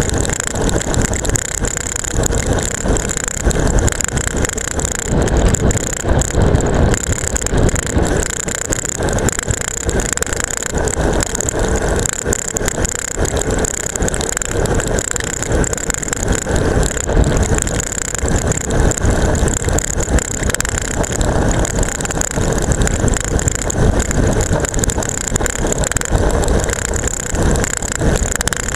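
A seatpost-mounted camera rattling hard on its strap mount as a road bike descends fast on asphalt: a dense, continuous clatter mixed with the rush of wind and tyre noise.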